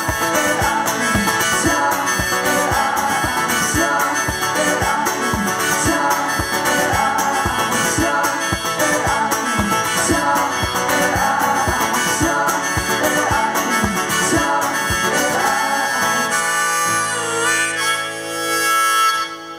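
Harmonica solo played in a neck rack over a strummed acoustic guitar. About three quarters of the way through the strumming stops and the song closes on long held harmonica notes.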